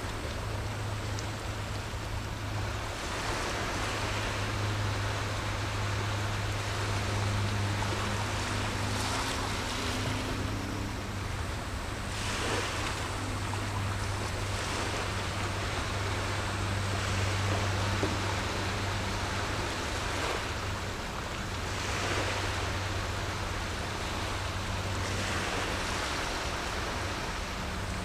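Small waves washing against the shore, swelling and falling back every few seconds, over a steady low hum.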